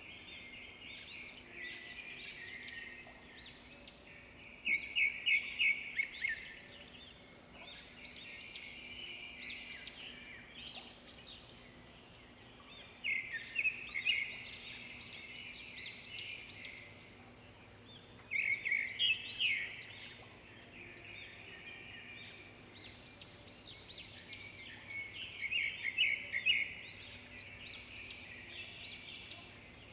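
Songbirds singing: steady high chirping, broken by a louder, rapid trilled phrase that comes back four times, about every six seconds.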